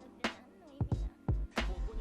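Background music with a beat of sharp drum hits over heavy bass and a melody.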